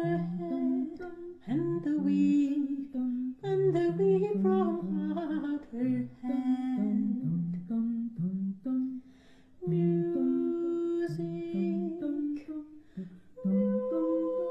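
A woman singing a slow Baroque song over a stepping bass accompaniment, with a short pause between phrases about nine seconds in.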